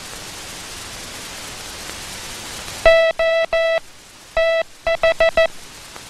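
Morse code sent as a steady beeping tone over a faint hiss. It spells O-T-H: three dahs, a pause, one dah, then four quick dits. The T is spaced tight against the H, so it reads as "O TH" rather than "OT H", a letter space and word space sent wrong.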